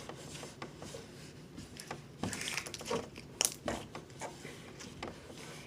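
Slime being handled and squished by hand: soft, irregular crackles and clicks, the sharpest about three and a half seconds in.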